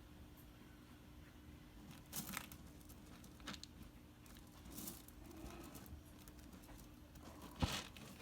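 Munchkin kitten scratching and digging in cat litter: a few short, scratchy rustles, the loudest near the end.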